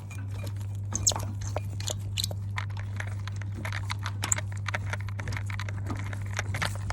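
Irregular clicks, taps and clinks of small metal parts being handled and fitted by hand on the Vespa PX front wheel, over a steady low hum.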